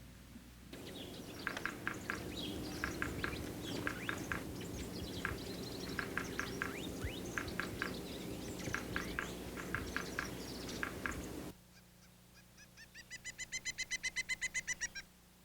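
Backyard songbirds calling, a busy run of short, sharp chirps over a low background rumble. After a sudden cut, a fast series of repeated call notes, about nine a second, swells louder and then stops.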